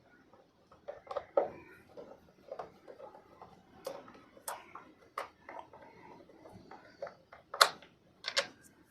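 Irregular clicks and taps of a screwdriver and screws on a motorcycle's air filter cover as it is being unscrewed, with a few sharper knocks among them.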